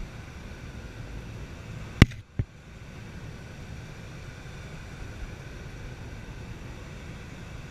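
Steady rush of airflow over a glider's cockpit canopy in gliding flight, with no engine. About two seconds in, two sharp clicks about half a second apart cut through it, the first much louder.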